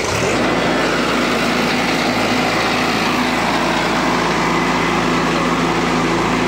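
The cable reel machine's engine comes up sharply right at the start and then runs steadily and loud. This is the hard-starting engine running after a replacement battery was fitted in place of its flat one.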